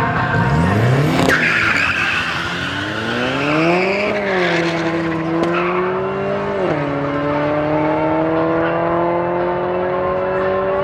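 Two street cars launching off a drag-strip start line with a screech of wheelspin, then engines accelerating hard, the pitch climbing and dropping sharply at gear changes about four and six and a half seconds in.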